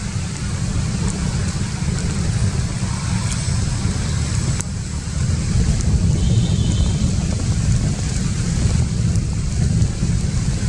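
Steady low rumble and hiss of outdoor background noise, with a faint high chirp about six seconds in.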